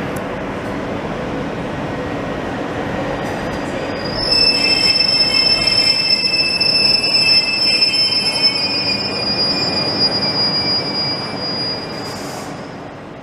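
Matterhorn Gotthard Bahn electric shuttle train rolling slowly into a platform with a steady running rumble. About four seconds in, a high squeal of several pitches sets in as it brakes. The squeal is the loudest part and fades away near the end as the train slows.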